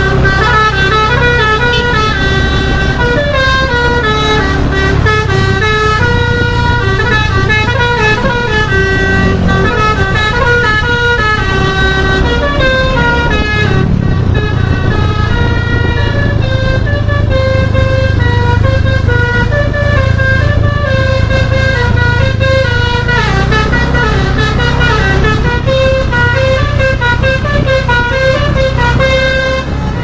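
A Shelani tour bus's telolet Basuri multi-tone horn plays a long, quick-stepping melody of horn notes over the low running of the bus's engine.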